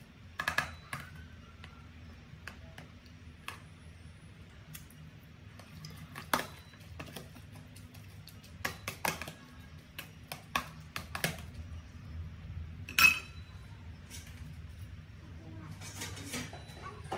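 Metal fork tossing shredded vegetables in a plastic food container: scattered clicks and knocks of the fork against the container, the loudest about thirteen seconds in. A faint low hum runs underneath.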